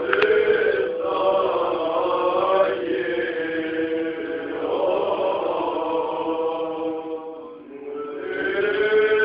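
Greek Orthodox Byzantine chant in a church: voices singing long held notes over a steady drone, with a brief break about three quarters of the way through before the singing resumes.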